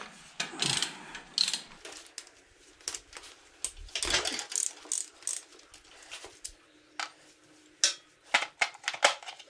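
Hand ratchet wrench clicking in short irregular runs, with metal clinks of sockets, as the transmission's E-Torx bolts are broken loose by hand.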